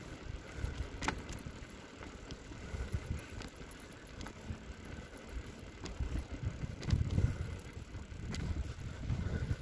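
Bicycle rolling along a tarmac street: an uneven low rumble of wind and tyre noise, with a few light clicks.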